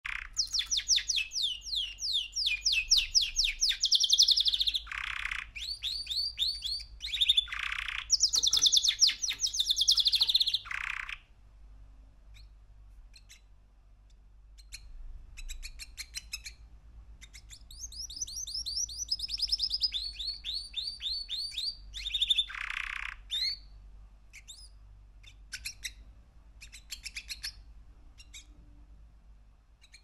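Three-month-old male canary singing: long, fast trills of rapidly repeated notes. The loud phrases fill the first ten seconds or so, then the song drops to scattered soft chirps, and a second long trill comes about two-thirds of the way through.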